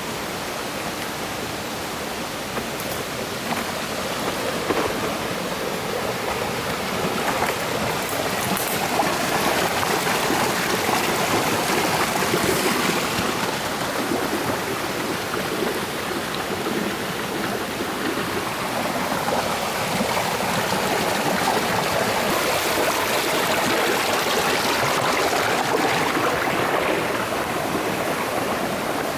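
Mountain stream rushing over rocks, a steady wash of running water that grows a little louder after the first several seconds.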